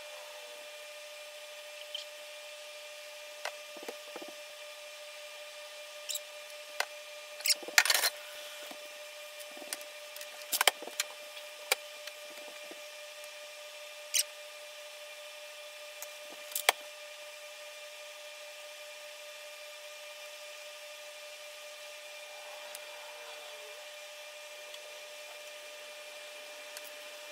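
Scattered light clicks and knocks of small objects and a utensil being handled on a countertop, over a steady electrical hum. The loudest clatter comes about 8 and 11 seconds in, and the knocks stop a little past halfway.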